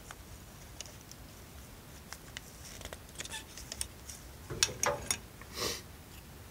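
Snap-ring pliers clicking and scraping on the retaining snap ring of a John Deere tractor's PTO shaft as the ring is worked off. Light scattered clicks, then a cluster of louder metal clicks and a short scrape about four and a half to five and a half seconds in.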